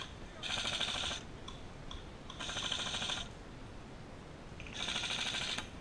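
Airsoft electric rifle firing three short full-auto bursts, each just under a second long and about two seconds apart, a rapid clatter of shots over the whine of the gearbox.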